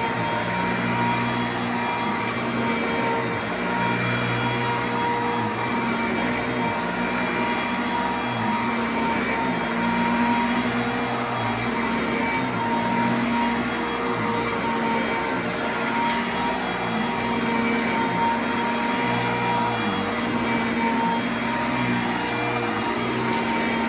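Sanitaire commercial upright vacuum cleaner running on carpet, a steady motor hum that holds its pitch while the low rumble swells and eases as it is pushed back and forth.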